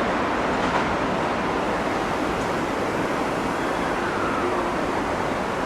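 Steady rushing noise of a metro train running, with no distinct clunks or tones.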